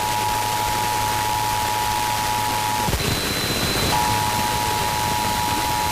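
Emergency Alert System attention signal, the steady two-tone 853 Hz and 960 Hz alert, heard under heavy static hiss from radio reception. The tones cut out about three seconds in and come back about a second later.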